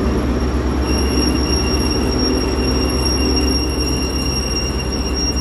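Class 43 HST diesel power car running as the train moves slowly past along the platform, a steady deep engine hum. From about a second in a thin steady high-pitched whine or squeal sounds over it.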